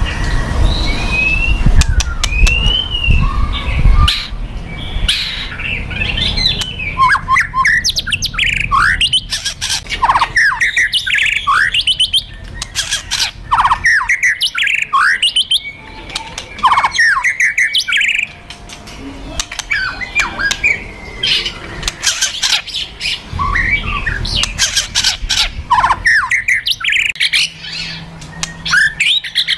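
White-rumped shama (murai batu) giving harsh, fast rattling churrs mixed with sharp, rapid whistled notes that rise and fall: the aggressive 'kretekan' and 'tembakan' calls of an agitated fighting male. A low rumble runs under the first four seconds and again about 24 seconds in.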